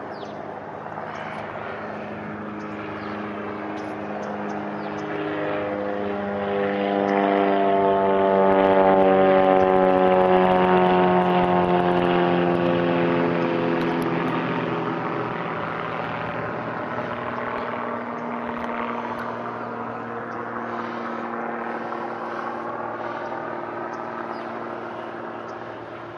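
Propeller airplane climbing out overhead after takeoff: its engine drone grows louder to a peak about a third of the way in, then drops in pitch and fades as it passes, with a lower drone lingering near the end.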